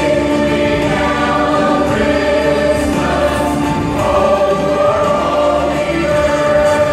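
Mixed choir of men and women singing together in long held notes, with the chord shifting every second or so.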